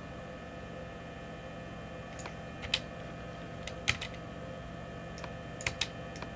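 A handful of sharp, scattered clicks of computer keys and mouse buttons, the loudest about three and four seconds in, over a steady electrical hum.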